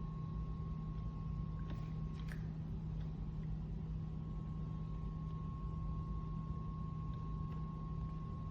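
Steady low hum with a faint, steady higher tone above it, broken by a few faint clicks, two close together a couple of seconds in and two more near the end.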